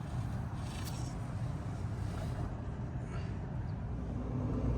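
Steady low background rumble and hum, with a few faint handling clicks and rustles.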